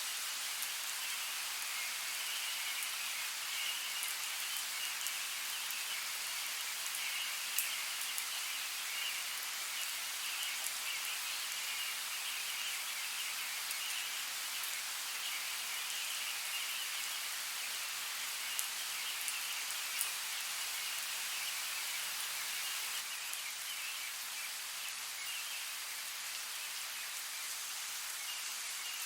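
Steady rainfall in woodland, an even hiss with a few sharper drip ticks now and then.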